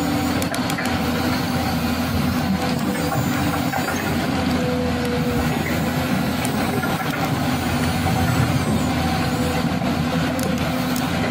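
A steady motor drone whose held pitches shift and break off now and then.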